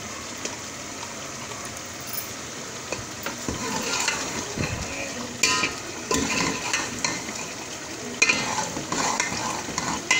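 A metal spoon stirring and scraping minced meat and green chillies in a steel pot while they sizzle in oil, at the frying-down (bhunai) stage as the water dries off and the oil separates. A steady sizzle at first, then from about three seconds in repeated scrapes and knocks of the spoon against the pot.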